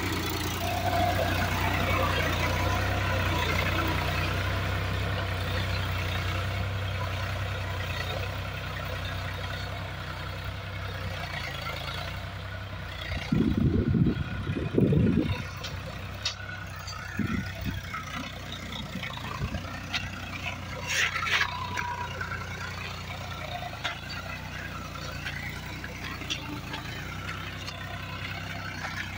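PowerTrac Euro 47 tractor's three-cylinder diesel engine running steadily under load as it pulls a cultivator through rocky soil, growing fainter as the tractor moves away. A few loud low thumps come about halfway through.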